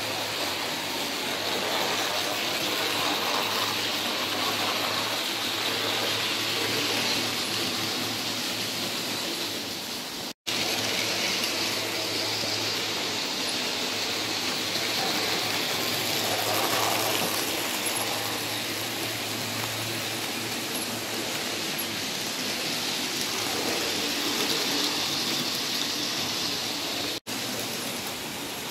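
00 gauge model trains, including a Hornby LBSC E2 tank engine, running round the layout: a steady whirring rush of electric motors and metal wheels on the rails. The sound drops out for an instant twice.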